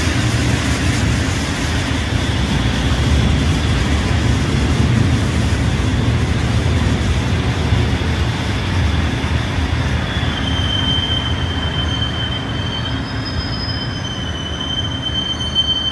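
Busan Metro Line 1 thyristor-chopper electric train running close by on the rails, a loud steady rumble of wheels and running gear. From about two-thirds of the way through, thin high-pitched wheel squeal comes in, several shrill tones that rise and fade.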